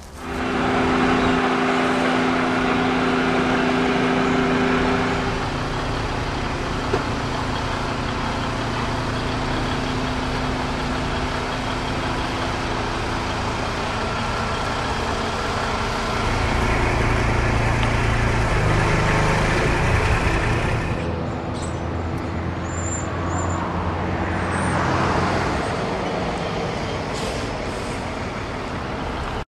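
Heavy truck running with steady road and tyre noise. The engine hum gets louder and deeper from about 16 to 21 seconds in.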